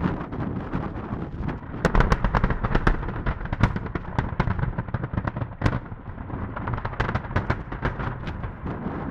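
Open-pit mass rock blast: emulsion explosive charges detonating in a rapid delayed sequence, heard as dozens of sharp cracks over a continuous low rumble.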